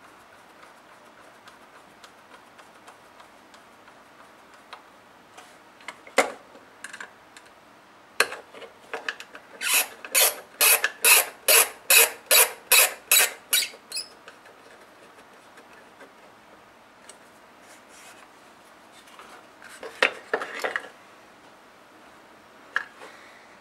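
Hex key turning a socket head screw into a 3D-printed plastic mount bar: a run of about a dozen short strokes, about three a second, with a few single clicks before and after.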